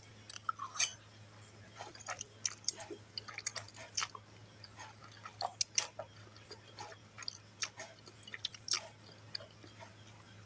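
Close-up mouth sounds of a person chewing fried instant noodles (mie goreng), with irregular wet smacks and clicks several times a second.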